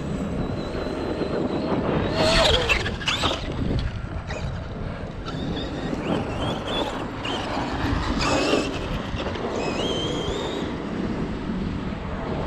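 Brushless electric motor of a Traxxas X-Maxx 8S RC monster truck whining up and down in pitch as it is throttled in bursts. Louder rushes of tyre and dirt noise come about two to three seconds in and again near eight and a half seconds, as the big tyres spin on loose clay.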